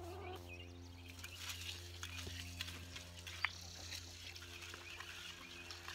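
Water from a garden hose running faintly into a plastic bucket of soaking grain, its hiss growing from about four seconds in, with one sharp click a little before.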